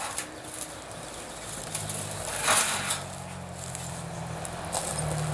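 Burnt scrap sheet metal being picked up and handled by hand: scraping and rattling, with a louder clatter about two and a half seconds in. A steady engine hum comes in after about a second and a half and grows a little louder toward the end.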